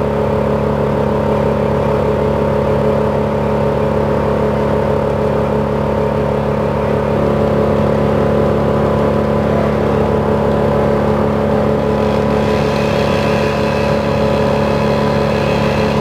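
Crane truck's engine running steady and unchanging, with a fainter, higher-pitched layer joining about three quarters of the way through.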